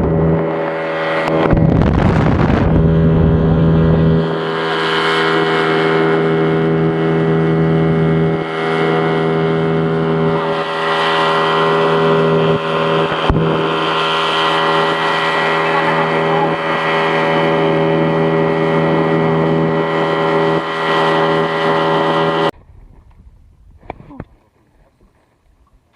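Small boat's engine running at a steady speed as the boat travels out to the fishing spot, then cutting off suddenly a few seconds before the end.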